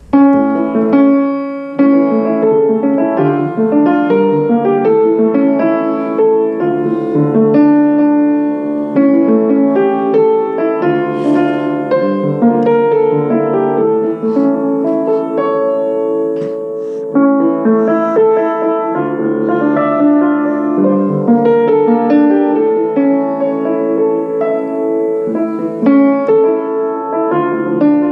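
Piano played continuously, a flowing run of chords and melody notes with no pauses.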